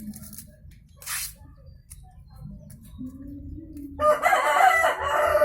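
A rooster crowing once, a single long call starting about four seconds in, the loudest sound here. A short rustle comes about a second in.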